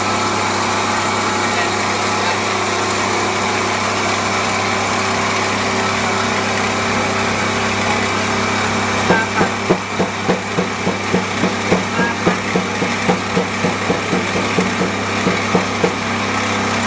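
Coffee pulverising mill running with a steady mechanical hum. About halfway in, a regular pulsing knock of about three beats a second joins it for some seven seconds.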